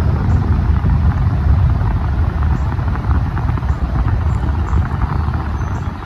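Large fan of an Air Choice 2000 CFM evaporative air cooler blowing, its airflow rushing straight onto the microphone as a loud, low, uneven rumble.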